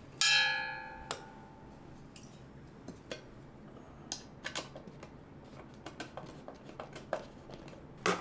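Screwdriver working the screws of a ceiling fan's mounting canopy: a sharp metallic clink that rings and dies away over about a second just after the start, then faint scattered clicks and ticks as the screws are loosened.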